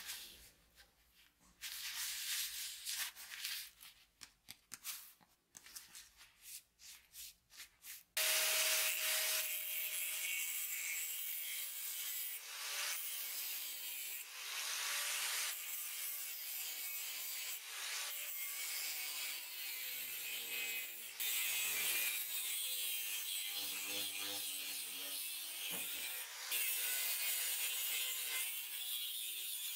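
An angle grinder disc grinding into a steel axe head clamped in a vise: a steady, hissing grind of metal that starts suddenly about eight seconds in. Before it come a few seconds of short, irregular rubbing strokes.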